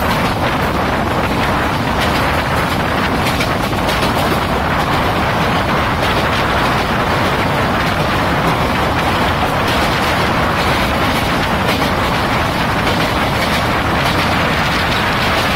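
Steady running noise of an Indian Railways passenger express coach at speed, heard from its open window: wheels on the rails and air rushing past.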